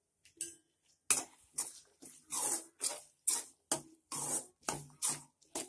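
Spatula scraping and stirring a thick pea masala in a steel kadai, in short regular strokes about two a second, starting about a second in.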